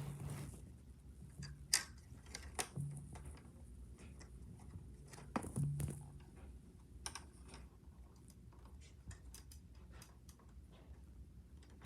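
Hands working at a plastic DVD case or its packaging: scattered clicks, taps and handling noises, the sharpest a little under two seconds in and near the middle.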